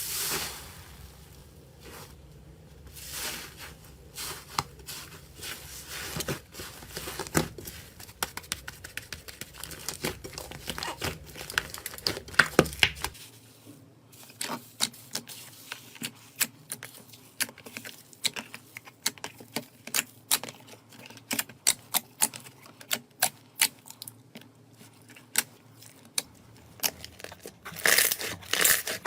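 Slime being squeezed, poked and stretched by hand: irregular sticky crackles, clicks and small pops, with a denser run of louder pops about twelve seconds in.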